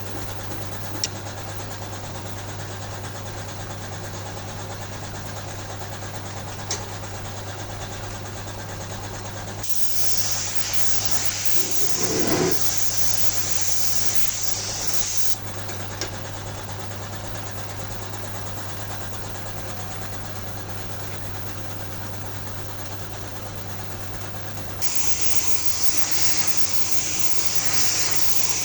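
A steady mechanical hum, broken by two long bursts of high hissing: one of about five seconds near the middle, and a second that starts near the end and runs on.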